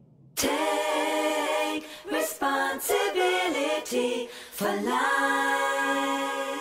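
A woman singing unaccompanied: a few short phrases of shifting notes, then a long held note that begins to fade near the end.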